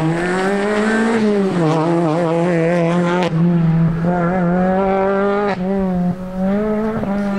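Rally car engine held at high revs on a special stage. The pitch stays high, with a few brief dips where the throttle is lifted or a gear is changed.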